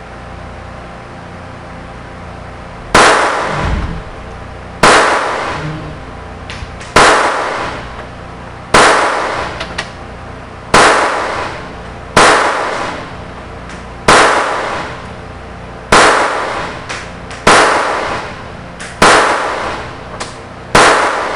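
Stoeger Luger .22LR toggle-action pistol firing eleven single shots at a steady pace, one every one and a half to two seconds, starting about three seconds in. Each shot is a sharp crack that trails off in an echo.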